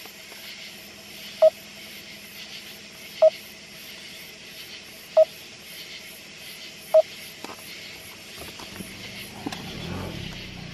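A car's electronic warning chime beeping, a short clear pip about every two seconds, four times, over a faint steady hiss. Near the end a low rumble from the car rises.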